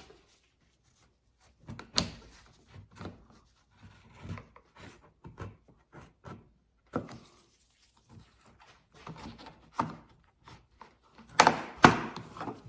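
A plastic trim tool scraping and prying at a plastic trim cover on the inside of a Lexus RX tailgate, with scattered small clicks and knocks. A quick run of loud snaps and knocks near the end as the cover's clips let go.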